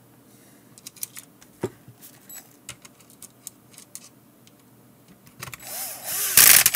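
Small clicks of a self-tapping screw and parts being handled, then near the end a cordless drill-driver whirs up and drives the screw into the multimeter's plastic case. It is loudest in the final half-second as the screw runs in.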